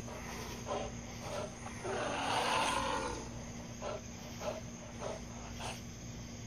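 An unseen wild animal calling with rough, angry-sounding noises, loudest for about a second around two seconds in, with short sharp sounds here and there.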